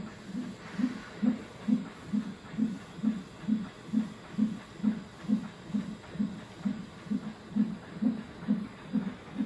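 Fetal heart monitor's Doppler speaker playing the unborn baby's heartbeat: a steady, even pulse of a little over two beats a second, about 135 a minute, within the normal range for a fetal heart rate in labor.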